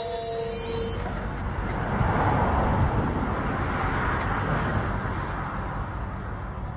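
Freight train wagon wheels squealing on the rails, the squeal stopping about a second in. Then a steady low rumble as the slow intermodal train creeps past almost at a standstill.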